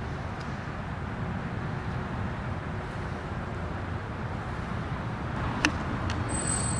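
Steady low rumbling background noise with one sharp click about five and a half seconds in. A steady high-pitched whine starts just before the end.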